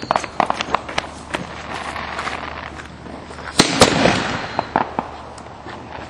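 Consumer fireworks going off: a rapid run of sharp cracks, then a loud bang about three and a half seconds in followed by a few scattered pops.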